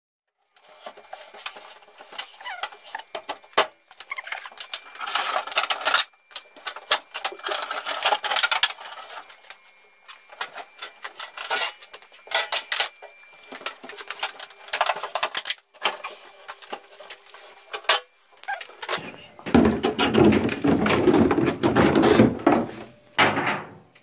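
A front-loading washing machine being manoeuvred and pushed back into place: irregular knocks, rattles and scraping. Near the end comes a few seconds of heavier, lower scraping rumble as the machine slides across the floor.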